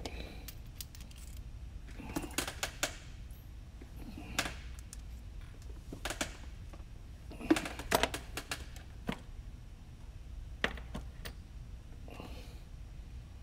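Light metallic clicks and clinks, in short irregular clusters, from a soldering iron's hot tip being worked off and swapped for a smaller one.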